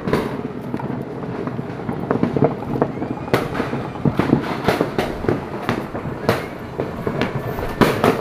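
Fireworks and firecrackers going off in a rapid, irregular run of bangs and pops, with the loudest blasts in the second half.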